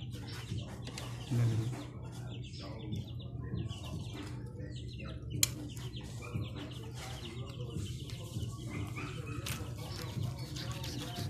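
Metal knife and fork cutting into a roast chicken on a plastic cutting board: scattered scraping and clicking, with one sharp click about five seconds in.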